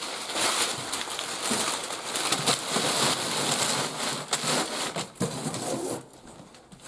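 Packing paper and box contents rustling and crinkling as they are handled, with scattered clicks and knocks; it quiets about six seconds in.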